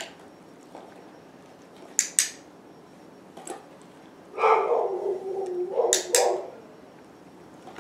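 A dog gives a drawn-out vocal sound, about two seconds long, just past the middle. Sharp clicks of the dog's nose knocking a plastic treat bowl come twice about two seconds in and twice more near the end of the vocal sound.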